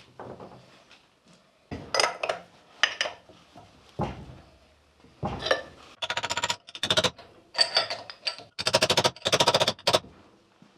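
Metal clinks and knocks of hand tools working on a Land Rover rear axle's drum brake parts, with several short bursts of rapid metallic clicking in the second half.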